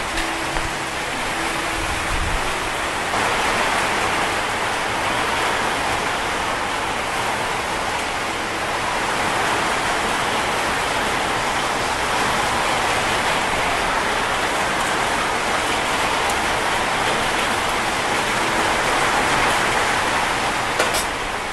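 Heavy rain pouring steadily on the corrugated metal roof and walls of an open-sided stall, an even hiss throughout, with a single sharp click near the end.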